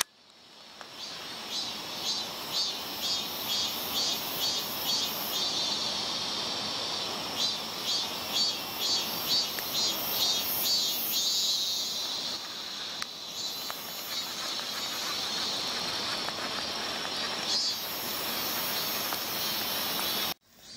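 Summer insects in the waterside vegetation chirring in chorus: a steady high buzz with a pulsing beat of about two to three pulses a second. The sound fades in at the start and drops out briefly just before the end.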